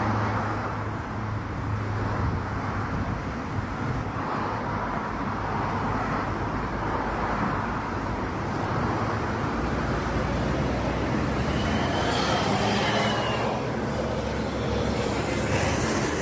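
Roadside traffic: steady engine and tyre noise from passing vehicles, with a low engine hum. A faint, brief high tone comes about twelve seconds in.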